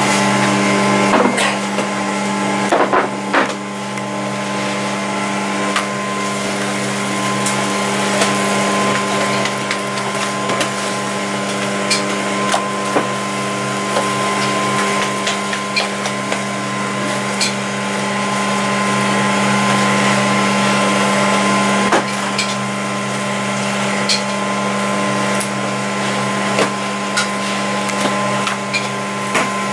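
Steady motor hum, with a set of unchanging pitches, from kitchen machinery at a naan griddle, with scattered sharp clicks and taps of a slotted metal spatula on the griddle as the naans are turned.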